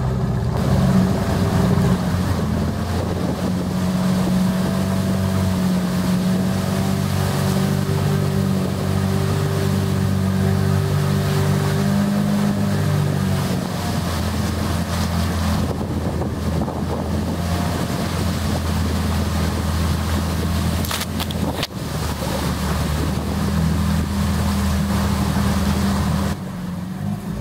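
A small boat's outboard motor running steadily while underway, with a low, even hum. There are a couple of sharp knocks about two-thirds of the way through, and the motor drops in level near the end.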